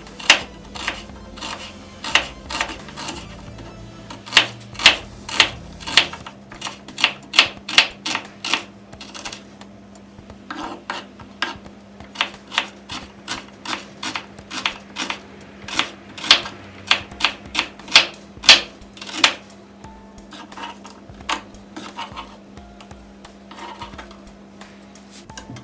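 Kitchen knife chopping down onto a wooden cutting board while slicing a red onion thinly: a steady run of sharp knocks, about two a second, growing fainter and sparser in the last few seconds.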